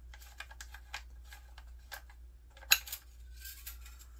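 Magazine cap of a Remington 1100 shotgun being unscrewed by hand: a run of light, irregular clicks and ticks, with one sharper click a little past halfway.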